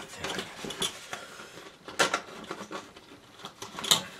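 Metal bulldog clips being handled and clipped onto the edge of a painting board on an easel: small scraping and rustling, with two sharp clicks about two seconds apart, one halfway through and one near the end.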